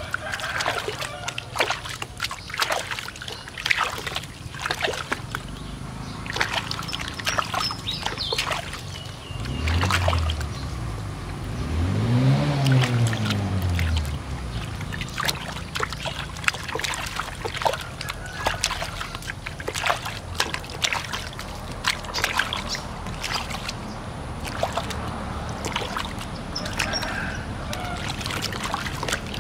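Soapy water splashing and sloshing in a plastic basin as hands scrub a baby monkey, with many small splashes throughout. About ten seconds in, a low hum rises and falls twice over a few seconds, louder than the water.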